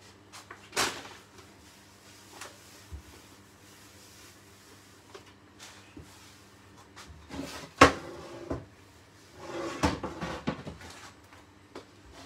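Kitchen handling noise from cookware and utensils on a worktop and hob: scattered clicks and knocks, a sharp knock about a second in, a loud clunk near eight seconds and a clattering shuffle around ten seconds, over a low steady hum.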